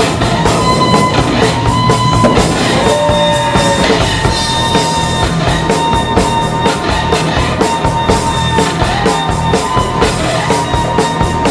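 Rock music with drums and a steady beat.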